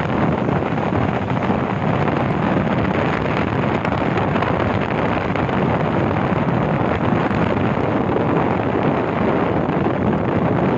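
Steady wind rush buffeting the microphone of a camera carried on a moving vehicle, with the vehicle's running noise underneath.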